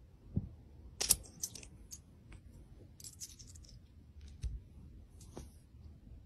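Small metal coins clinking lightly as they are handled and set one on top of another: a few scattered soft clicks, some with a brief metallic ring.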